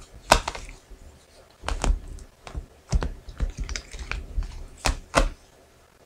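Angel oracle cards being shuffled and handled by hand: a string of sharp, irregular clicks and slaps, the strongest about a third of a second in and again about five seconds in.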